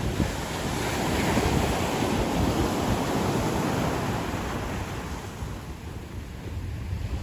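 Ocean surf washing up a beach: a wave surges in over the first couple of seconds, then fades as the water draws back. Wind buffets the microphone with a low rumble throughout.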